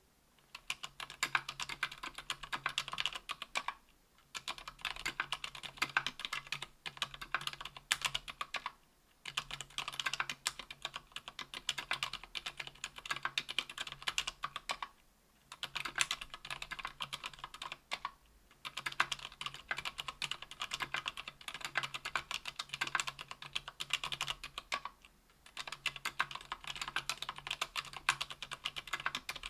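Typing on a KBDfans Tofu 60% aluminium mechanical keyboard with lubed ZealPC Sakurios silent linear switches (62 g) and GMK keycaps. Dense runs of keystrokes a few seconds long, broken by brief pauses.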